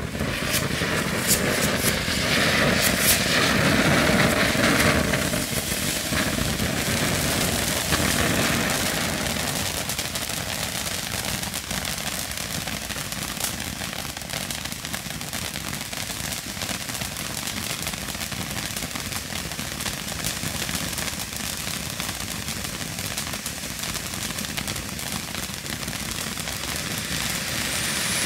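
Headless Horseman firework fountain burning: a continuous loud hiss of spraying sparks with dense rapid crackling, starting suddenly and strongest in the first several seconds before settling to a steady spray.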